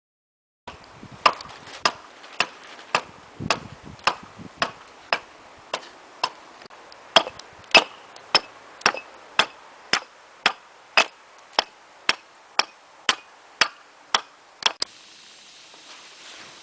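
Sharp knocks repeating evenly about twice a second, some two dozen in all, stopping abruptly near the end.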